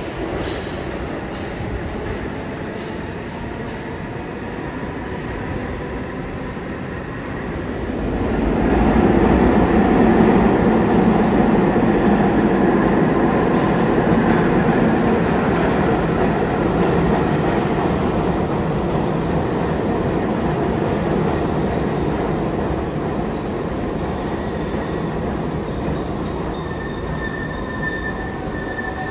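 New York City subway train running on the track, its wheel and rail rumble growing louder about eight seconds in and then slowly easing off. A high wheel squeal rings out near the end.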